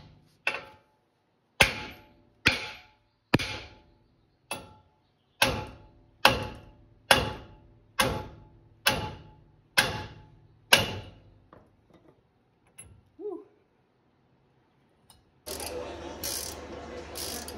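About a dozen hammer blows on the steering knuckle of a Ram 1500's front suspension, roughly one a second, each metal strike ringing briefly, to knock the lower control arm loose. The blows stop about two-thirds of the way through, and near the end a steady, louder noise of another kind takes over.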